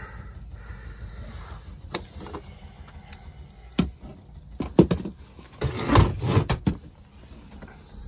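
Several sharp knocks and clatters, the loudest a little before five seconds in and around six seconds, over a low steady hum.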